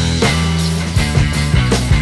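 Background rock music with a steady beat and sustained low bass notes.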